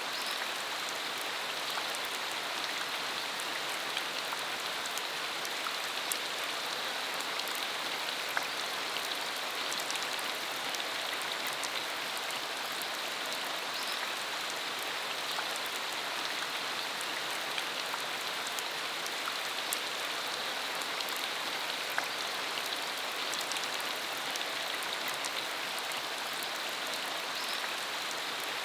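Steady rain falling, a constant hiss with many fine drop ticks scattered through it.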